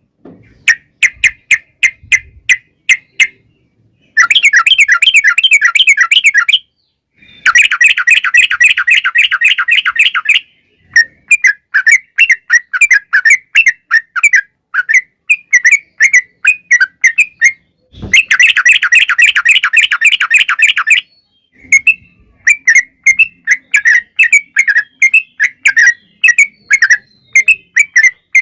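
Yellow-vented bulbul (trucukan) singing loudly in full song. Long, rapid rattling trills, three of them lasting about two to three seconds each, alternate with shorter choppy chattering phrases.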